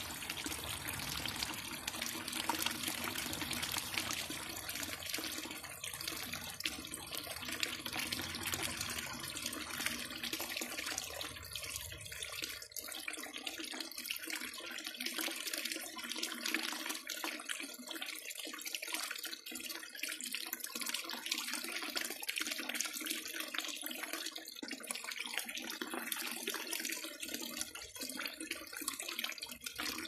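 Small waterfall, a thin stream of water pouring into a pool and splashing steadily on its surface. A low rumble underneath stops about twelve seconds in.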